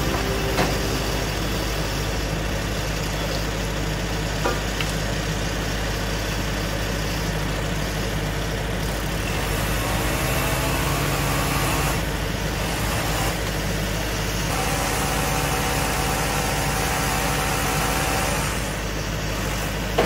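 Kioti RX7320 tractor's diesel engine idling steadily.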